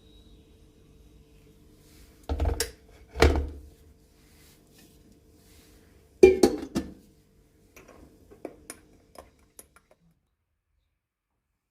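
Dishes and kitchenware being handled: two heavy knocks, then a quick clatter of clinks a few seconds later and a run of lighter taps, over a faint steady hum.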